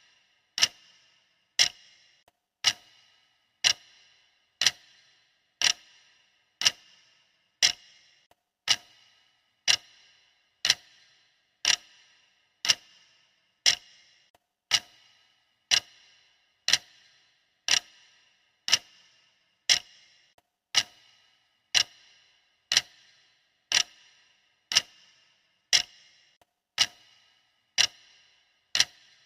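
Clock-style ticking sound effect of a countdown timer: one sharp tick a second, each with a short ringing tail, in a steady even rhythm.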